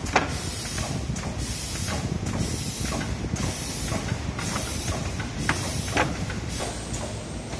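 Steady factory machinery noise with a high hiss that keeps cutting out briefly, and a few sharp knocks and clacks as a plastic radiator tank is handled and set onto a metal fixture.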